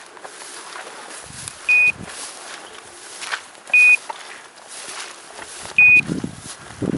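A dog's electronic beeper collar on an English setter, giving a short, high, single-pitch beep about every two seconds: the point-mode signal that the dog is standing still on point. Between the beeps, footsteps rustle through rough grass and heather.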